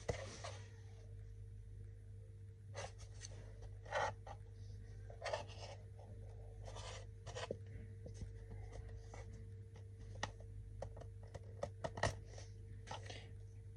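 Fingers picking and peeling dried glue off a white plastic container: soft, irregular scratching and crackling, a few louder scrapes among them, over a faint steady hum.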